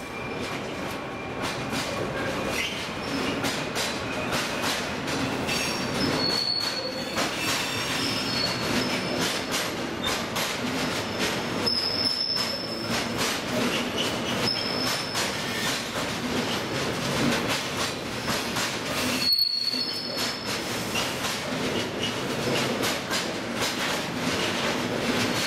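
Freight train of covered hopper wagons rolling past: a steady rumble of wheels on rail with repeated clacks over the rail joints, and several brief high-pitched wheel squeals.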